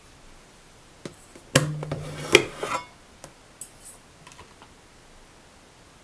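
Stainless-steel thermal carafe of a Melitta Look Therm Timer filter coffee machine being pulled out from its place under the filter holder. A click comes about a second in, then a second or so of loud clattering and scraping of plastic and metal, then a few lighter clicks.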